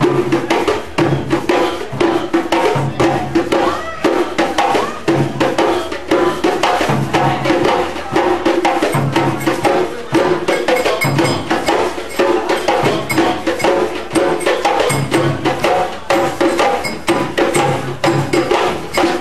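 Live band music carried by hand percussion: a fast stream of sharp wooden strikes over a low drum pattern that repeats about once a second, with voices in the mix.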